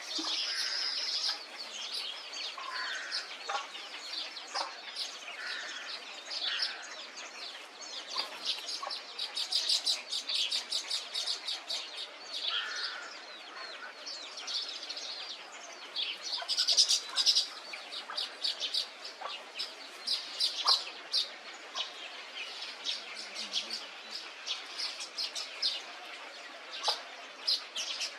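A chorus of many wild birds calling at once: dense, rapid high chirping throughout, with a few lower calls in the first half.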